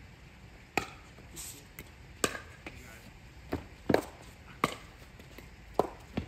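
Pickleball rally: paddles hitting the hard plastic ball, a run of about seven sharp pops spaced irregularly, roughly a second apart.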